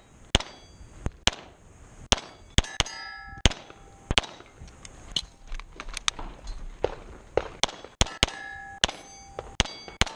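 Rapid pistol shots with steel plate targets clanging and ringing as they are hit. There is a short break a little past halfway for a magazine change.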